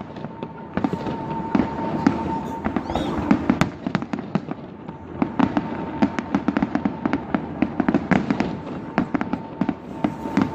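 Fireworks going off in quick succession: many sharp bangs and crackles every second, thickest over the second half.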